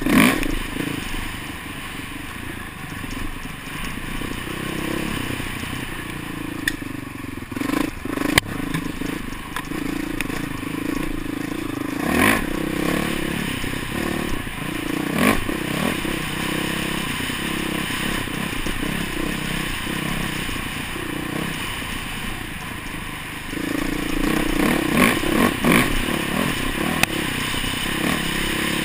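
Dirt bike engine running and changing revs as it is ridden along a trail, heard from a helmet camera, with scraping and clattering and several sharp knocks from the bike over the rough ground.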